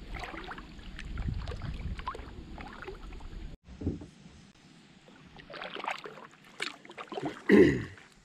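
Kayak paddle strokes: the blades dipping and pulling through lake water with splashes and drips, busier in the first half and quieter after a brief break in the sound. One louder, short knock-like sound stands out near the end.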